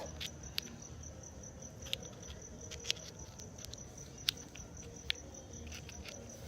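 Crickets chirping in a steady, fast-pulsing high trill, with a few sharp clicks scattered through.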